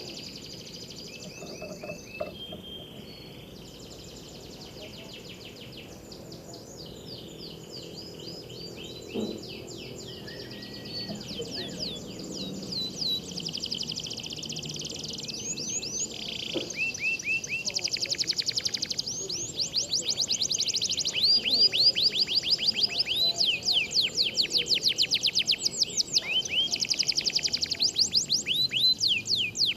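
Canaries singing over one another in fast trills and rapid runs of repeated notes. The song grows louder and denser about halfway through.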